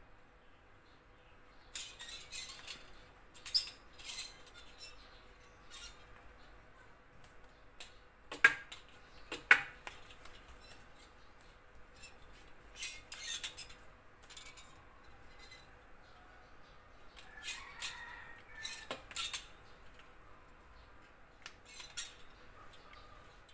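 Scattered sharp clacks and scrapes of a hard object striking and sliding on a tiled floor during an attempt to catch a snake, the loudest two knocks about a second apart a third of the way through.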